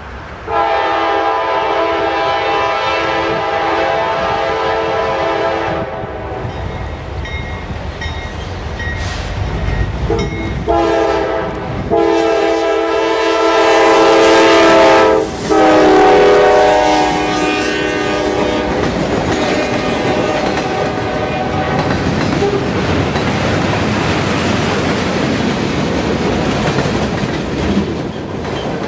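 Locomotive air horn sounding a chord: one long blast, then after a pause a run of blasts lasting about seven seconds. Afterwards the train rolls past with steady wheel and rail noise, which drops off near the end.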